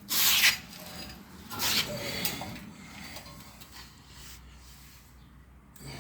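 Rubbing and scraping of front-suspension parts being handled and fitted: a loud scrape right at the start, a second, longer scrape about a second and a half in, then only faint background.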